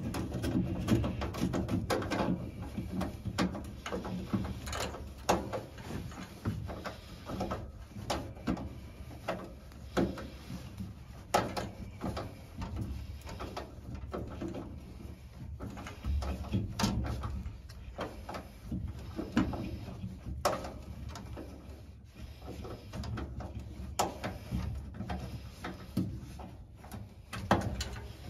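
Irregular clicks, knocks and light clatter of hands working on a gas furnace's inducer motor mounting and wiring, over a low rumble of handling and fabric brushing close to the microphone.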